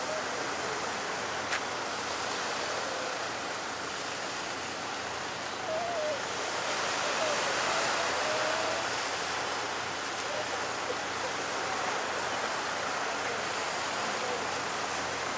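Steady rushing sea-shore ambience of surf and wind, swelling a little around the middle, with a few faint, short wavering calls in the distance.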